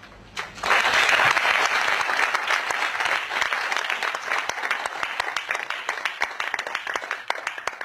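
Audience applauding. The clapping breaks out a little under a second in and slowly thins out toward the end.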